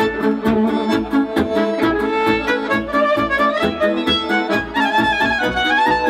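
Romanian folk band playing a fast dance tune: a violin leads over accordion and keyboard accompaniment, with a quick steady beat.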